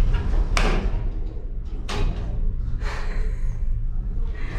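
Steady low rumble inside a ferry's stainless-steel passenger lift, with three short, sharp bursts of noise about a second apart.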